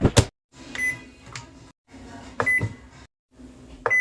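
Microwave oven being set going: the door shuts with a sharp click, then short keypad beeps sound over the oven's steady low hum, with a pair of beeps near the end. The sound is broken by brief silent gaps.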